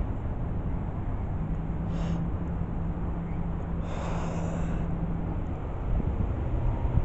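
Steady low outdoor rumble on a body-worn camera's microphone, with a low hum through the middle. A short breathy rush comes about two seconds in, and a stronger one about four seconds in.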